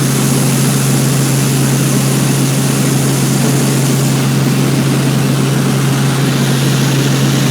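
Robinson R44 helicopter in flight, its six-cylinder piston engine and rotors making a steady, unchanging drone with a constant low hum beneath a broad rush of noise.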